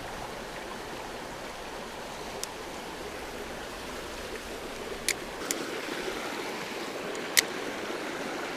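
Small creek water running steadily, with a few short, sharp clicks over it, the loudest near the end.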